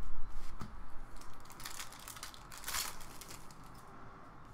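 A stack of trading cards being handled and shuffled in the hand, card stock sliding and flicking against card stock in short scratchy strokes. The strokes are busiest and loudest a little under three seconds in, then die down.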